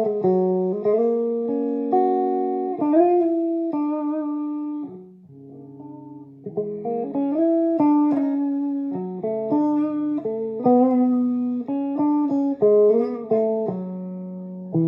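Electric guitar played through a homemade valve-style amplifier on its clean channel: picked single notes and chords in a slow melodic line, with a few bent notes. It drops to a quieter passage about five seconds in.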